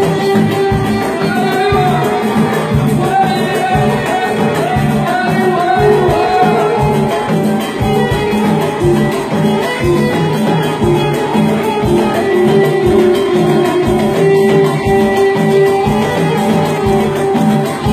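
Moroccan jebli music played live by an orchestra: violins bowed upright on the knee, a plucked lute, keyboard and drum kit, carrying a melody over a steady beat.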